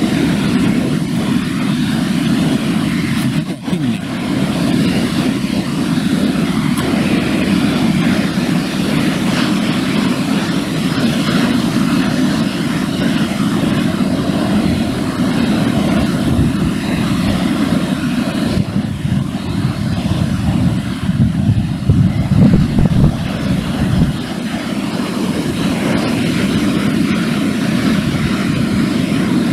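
Wind rumbling on the camera microphone: a steady low rush that swells and dips in gusts, with a stronger gust about three quarters of the way through.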